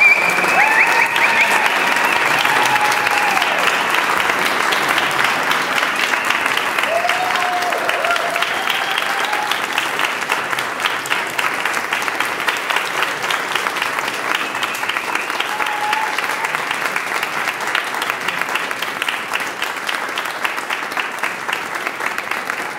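Audience applauding, the clapping slowly tapering off, with a few voices calling out over it near the start.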